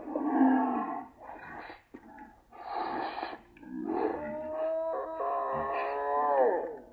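Animal-like vocal noises: a few short breathy snorts and whines, then a long held howling note that wavers and drops in pitch near the end.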